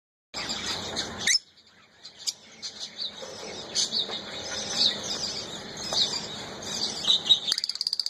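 Peach-faced lovebirds chirping: many short, high-pitched chirps that rise and fall in pitch, with a short pause after the first second and a fast, even chattering run near the end.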